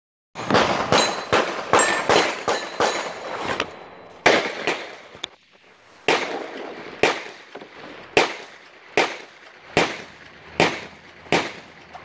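Gunfire at a shooting range: a fast, uneven string of overlapping shots from more than one gun for the first few seconds, then a brief lull and single shots at an even pace, a little under one a second, each with a short echo tail.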